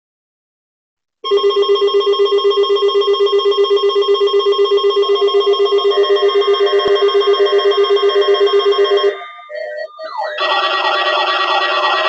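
A bank of NOAA weather radios sounding their alert alarms together for a Required Weekly Test: fast beeping at several pitches at once, starting about a second in. After a brief dip near the end, some radios switch to a repeating rising, siren-like warble.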